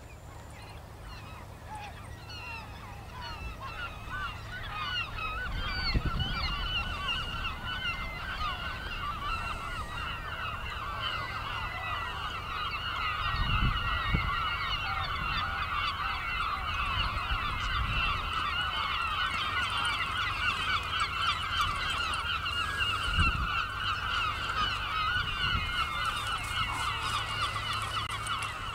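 A large flock of geese honking together in a dense, unbroken clamour that builds over the first few seconds and cuts off near the end. A few low thumps sound under it.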